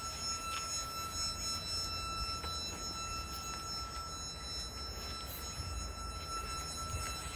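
Turbo-electric prototype vehicle's engine running at a single fixed speed, a steady low drone with a constant high-pitched whine over it.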